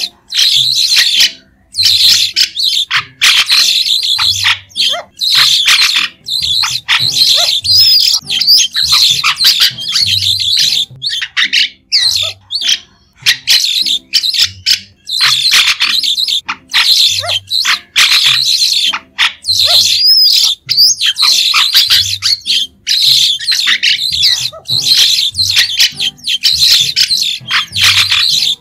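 White-shouldered starling calling: a rapid, near-continuous chatter of short, high calls and squawks with only brief pauses.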